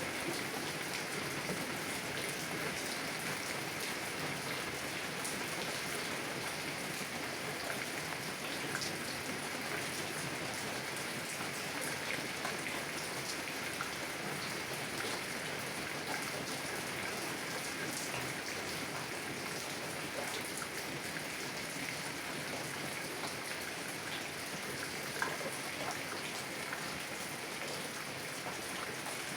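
Heavy rain falling steadily on a car's windows, heard from inside the car: a dense, even hiss with scattered single drop taps.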